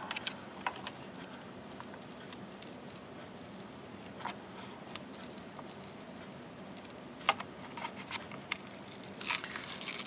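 Adhesive foil shield being peeled off an optical drive's metal casing: faint crackling and tearing, with scattered small clicks and a few sharper ticks.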